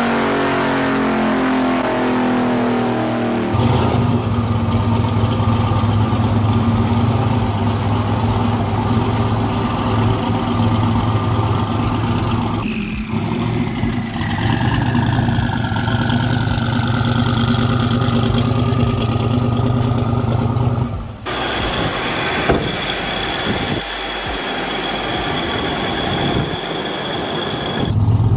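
Twin-turbo Chevrolet Silverado 1500 truck engine running loud under load with revving and a steady low drone, and a falling whine partway through. The sound cuts abruptly to a quieter engine with a steady high tone about two-thirds of the way in, then the loud drone returns at the very end.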